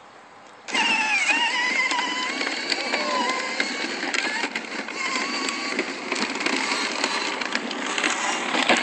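Battery-powered ride-on toy quad's electric motor and gearbox whining as it drives over asphalt, with a wavering pitch and small clicks from the plastic wheels. It switches on suddenly under a second in and runs steadily.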